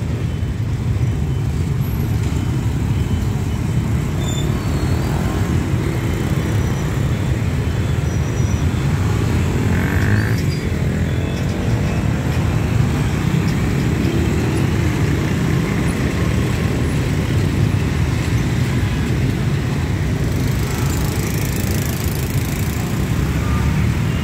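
Dense road traffic, mostly motorbikes and scooters, streaming past at close range: many small engines running together in a steady rumble.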